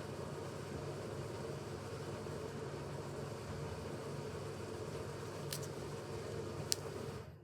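Hoover Ecologic Computer Washer 1300 washing machine spinning, a steady motor hum and drum rush. Two sharp clicks come near the end, and the sound cuts off abruptly just before the end.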